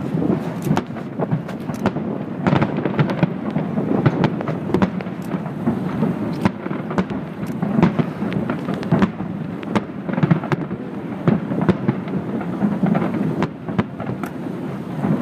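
Aerial firework shells bursting in quick succession: a continuous low rumble of booms with many sharp cracks throughout.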